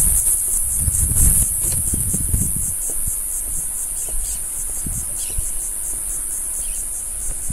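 Insects chirping in the dune vegetation: a steady, high-pitched trill that pulses in rapid, even beats. Wind buffets the microphone in the first couple of seconds, and a few faint bird chirps come midway.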